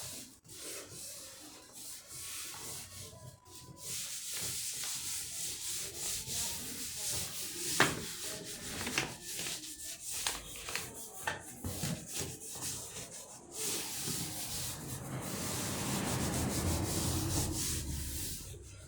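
Hands rubbing and smoothing a sheet of cardstock onto glued cardboard: a papery rubbing with scattered rustles and a sharp tap about eight seconds in. The rubbing becomes louder and steadier near the end.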